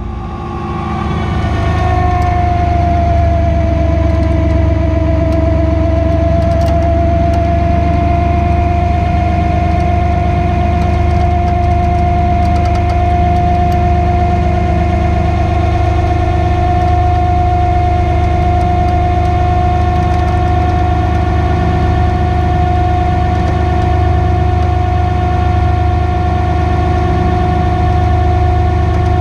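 Tow truck's winch pulling a stuck Ford F-150 out of sand: a steady mechanical whine over the low running hum of the tow truck's engine. The whine dips slightly in pitch over the first few seconds, then holds steady.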